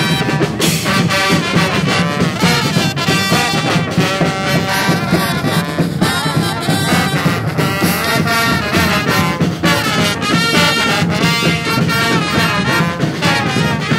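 Street brass band playing live: trombones and trumpets sounding melody and harmony together over a steady beat.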